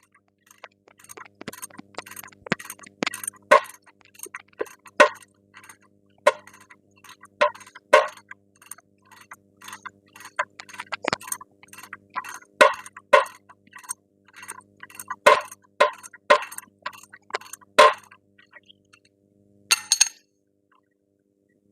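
Irregular metallic clicks and clinks of hand tools working on the front strut bolts of a Dodge Grand Caravan, one to three a second, some much louder than others. A faint steady hum runs behind, and there is a short noisy burst near the end.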